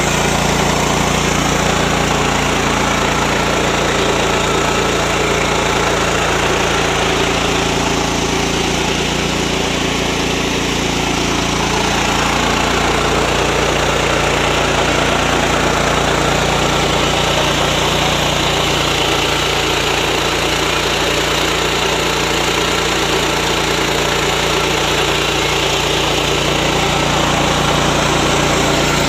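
Yasuka 3-in-1 mini rice mill running steadily, driven by its 7–7.5 HP MGX 210 engine, with a loud, even machine noise throughout.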